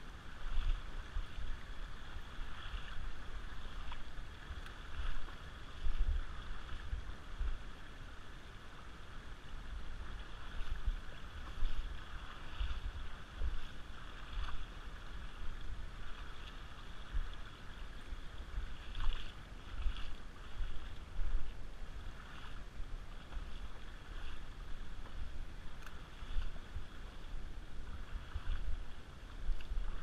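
Shallow river water running over a gravel bed in a steady rush, with wind buffeting the camera microphone in irregular low gusts.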